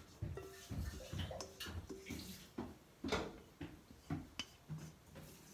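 Carrot cake batter sliding and plopping out of a tipped stainless-steel mixing bowl into a lined baking pan, with irregular scrapes and light knocks against the metal bowl.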